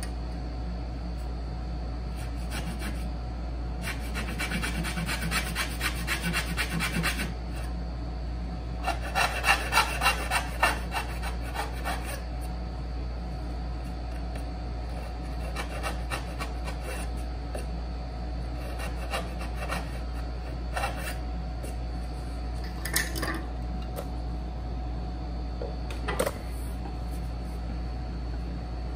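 A hand tool working wood during dovetail cutting: two runs of quick back-and-forth strokes, about three a second, the second run louder, followed by a few single clicks or taps.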